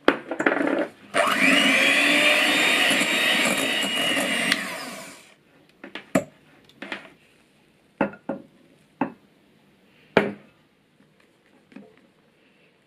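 Electric hand mixer running steadily, its beaters whipping egg whites and sugar into meringue, rising in pitch as it speeds up about a second in. It stops after about five seconds, and a few light separate knocks against the glass bowl follow.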